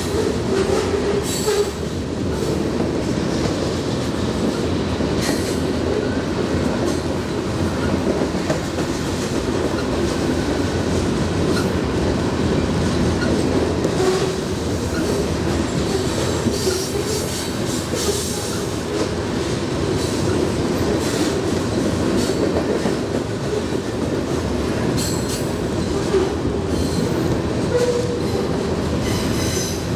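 Freight cars rolling past on curved track: a steady rumble of steel wheels on rail, with brief high squeals from the wheels at several moments.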